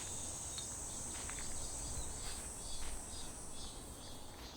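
Crickets chirring steadily, a continuous high-pitched drone with faint soft ticks beneath it.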